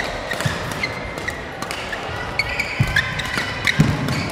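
Fast badminton doubles rally: rackets striking the shuttlecock in sharp cracks, sports shoes squeaking on the court floor, and a couple of heavier footfalls near the end.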